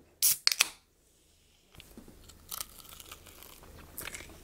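Crunchy bites into crispy fried food: three loud, sharp crunches within the first second, then quieter crunching and chewing.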